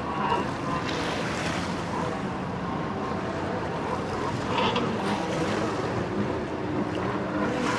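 Stand-up jet ski engines running at speed across the water, a steady distant drone under wind noise on the microphone.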